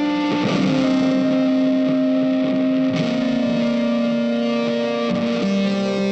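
Background music: sustained electric guitar chords with effects, changing chord a few times.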